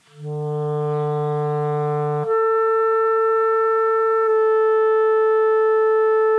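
A B-flat clarinet plays a held low E, then about two seconds in jumps up a twelfth to the B above, the note's first overtone. The B is held steady as a long tone in a voicing and overtone exercise.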